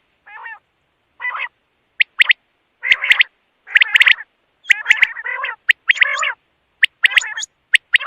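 Quail calling: a run of short, harsh, warbling calls mixed with sharp clicking notes, repeated in quick bursts with silent gaps between them.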